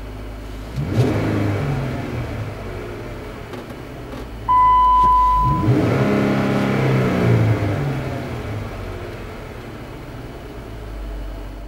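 Jeep Wrangler JK's V6 engine idling through its exhaust, blipped twice, about a second in and again around six seconds in, each rev rising and settling back to idle. A steady electronic beep lasts about a second between the two revs.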